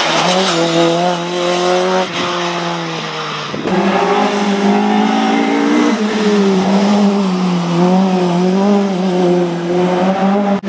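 Ford Fiesta Mk1 race car's naturally aspirated 1.8-litre Zetec four-cylinder running hard at high revs under load. Its pitch rises and dips, with a couple of abrupt breaks in the first four seconds.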